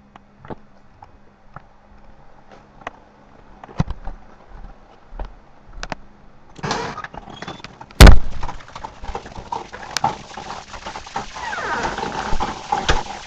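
A few faint clicks and knocks, then a door opening with a loud bang about eight seconds in. Heavy rain then hisses steadily.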